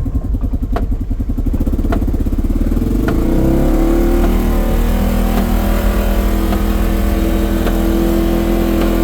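A motor vehicle's engine running close by: low, rapid firing pulses at first, then rising in pitch about three seconds in as it picks up speed, and holding a steady drone after that.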